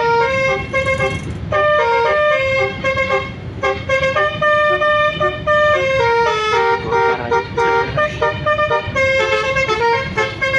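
Bus's basuri telolet horn playing a tune: a quick run of loud, pitched horn notes stepping up and down, over a low rumble.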